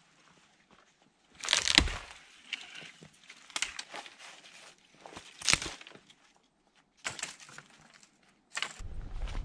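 Irregular crunching, cracking and rustling as a long dead branch with snow-laden twigs is pulled and handled while boots tread in deep snow, the loudest crunch about a second and a half in. A low rumble starts near the end.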